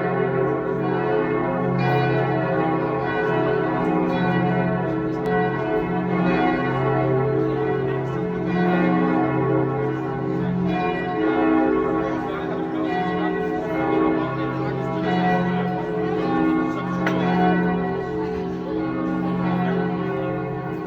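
Several church bells ringing together in a continuous peal: their strikes come again and again about once a second and overlap, and each bell's tone rings on under the next strokes.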